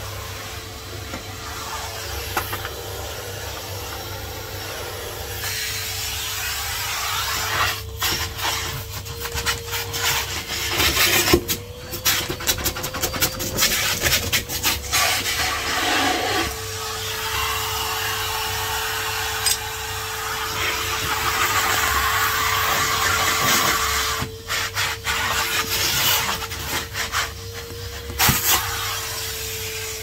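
Henry HVR200 620 W cylinder vacuum cleaner running with a steady motor whine and rushing suction. Its floor tool and hose scrape and knock against the floor as they are moved about. The whine rises slightly in pitch for a few seconds around the middle.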